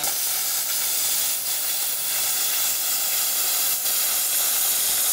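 Hypertherm Powermax 85 plasma cutter cutting steel plate: a steady, even hiss of the air-plasma arc.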